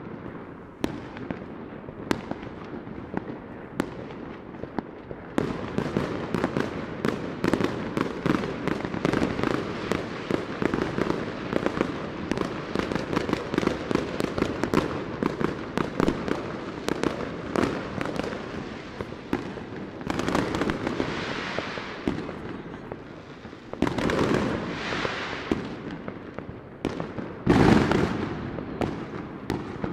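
Fireworks going off all around: a few scattered sharp bangs at first, then from about five seconds in a dense, continuous crackle of many cracks a second. Several louder bursts come in the second half, the loudest shortly before the end.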